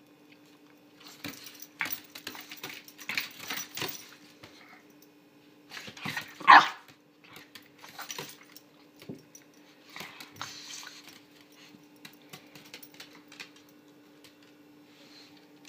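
Small dog barking and yapping in short bursts, loudest about six and a half seconds in, with quieter bursts after.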